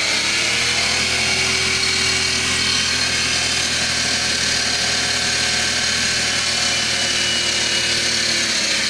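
MG6's 15E4E engine running again after its no-start was cured with new crank and camshaft sensors, revs climbing in the first second, held steady, then dropping near the end. It runs somewhat noisily because the air cleaner is not yet refitted.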